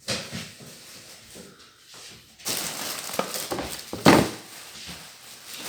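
Handling of groceries and packaging: rustling and scraping, with a sharp knock about four seconds in as an item is set down.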